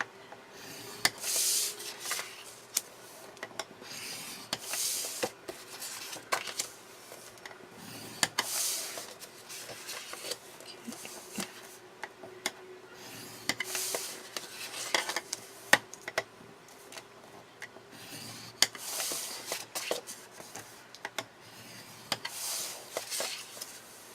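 A tool rubbed in rasping strokes along paper cardstock, six strokes a few seconds apart, with light taps and clicks of the paper and tools between them.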